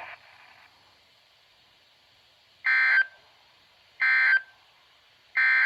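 Emergency Alert System SAME digital code from a NOAA Weather Radio broadcast sending three short data bursts, each about a third of a second long and about 1.3 s apart: the end-of-message signal that closes the required weekly test.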